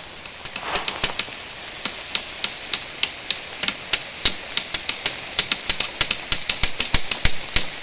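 A hand tool striking wood in rapid, sharp knocks as a cabin frame is built, sparse at first and then quicker, about four a second, in the second half. Steady rain hisses underneath.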